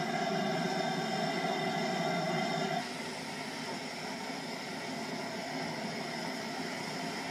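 GWR steam tank locomotive No. 4247 on a turntable, with a steady hiss of escaping steam. A steady whine sounds over the hiss and cuts off about three seconds in, leaving the hiss alone and a little quieter.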